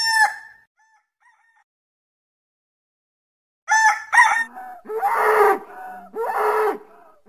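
Rooster crowing: the end of one crow, then a pause, then short crowing calls about four seconds in. After that come short, lower animal calls repeated about once a second.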